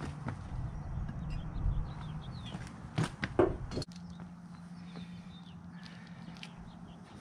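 A couple of footsteps on gravel about three seconds in, over a steady low hum and faint bird chirps.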